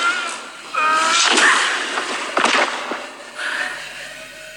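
Movie fight sound effects: quick whooshing swings and a blow about two and a half seconds in, with a short pitched cry about a second in.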